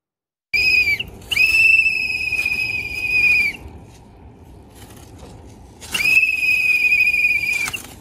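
A whistle blown in three steady high-pitched blasts: a short one, then two long ones of about two seconds each, with low background noise between them.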